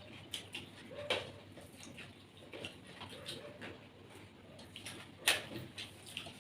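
Close-up eating sounds: a scatter of wet clicks and smacks from chewing and eating by hand, with one louder sharp click about five seconds in.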